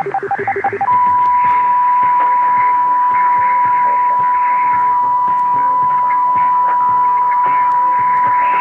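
A steady electronic signal tone over radio-like static hiss, cutting in sharply about a second in and holding level, with music faintly underneath.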